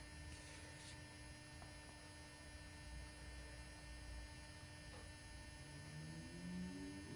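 Near silence: faint, steady electrical mains hum with room tone.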